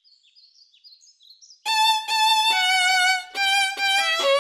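Faint high chirping, then about a second and a half in a bowed violin starts playing a short phrase of held notes with vibrato, stepping down in pitch.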